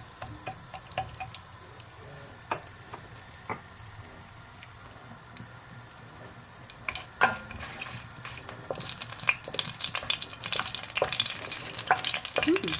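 Whole spices (bay leaves, cinnamon stick, cloves, cardamom) frying in hot oil in a pan: at first scattered pops and crackles, then about two-thirds of the way through a dense, continuous sizzle as the oil heats up.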